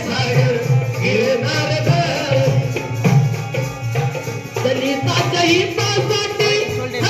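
Live Marathi folk song: a woman singing with hand-drum accompaniment keeping a steady beat.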